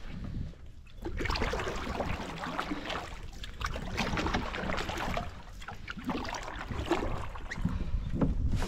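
Wooden canoe paddle working the lake water: irregular splashes and drips as the strokes go in and out, with water lapping at the canoe's hull.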